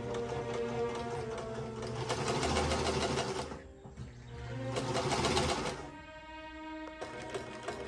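Singer vibrating-shuttle sewing machine running, its mechanism clattering in rapid ticks, stopping briefly twice, under background music.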